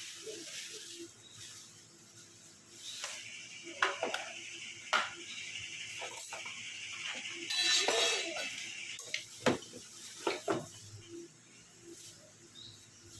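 Metal tools and parts clinking and knocking several times while refrigerator tubing is worked on for silver brazing, with a brief hiss in the middle.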